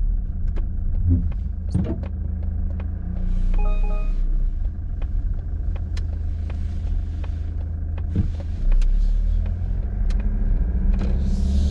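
Mazda CX-30's 1.8-litre four-cylinder Skyactiv-D turbodiesel pulling away at low speed, heard from inside the cabin as a steady low drone. Scattered light clicks, and a short beep about four seconds in.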